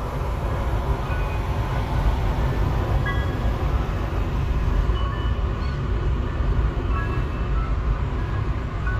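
Steady road noise inside a moving car: a continuous low rumble of tyres and engine, with short faint tones now and then over it.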